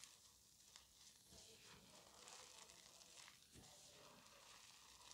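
Faint soft crunching and powdery crackle as hands squeeze and crumble blocks of reformed gym chalk, a dense patter of tiny cracks with a dusty hiss.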